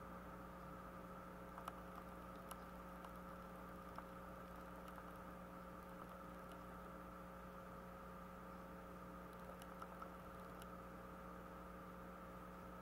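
Faint steady electrical hum with hiss, broken by a few faint scattered clicks.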